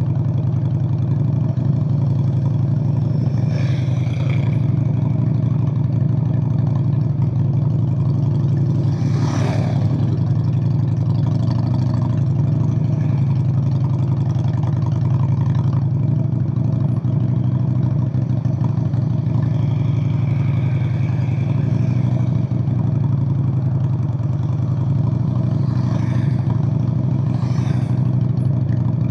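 Straight-piped Honda Shadow VLX 600 V-twin running loud and steady at an unchanging engine speed. A few short hissing rushes rise above it, the clearest about a third of the way in.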